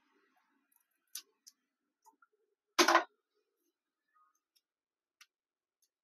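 Hands handling double-sided foam tape and plastic parts: a few light clicks and one loud, short crackling rasp a little before halfway.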